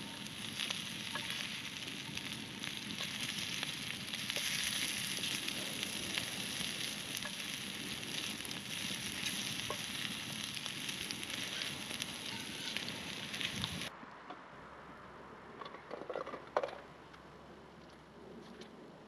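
Food frying and sizzling loudly in a pan, with sauerkraut just added and some stirring. The sizzling cuts off abruptly about three-quarters of the way through, leaving a quieter background with a few light knocks.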